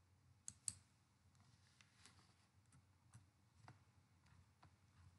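Near silence: quiet room tone with two short, sharp clicks about half a second in and two fainter ticks later, from the computer being operated as the screen changes.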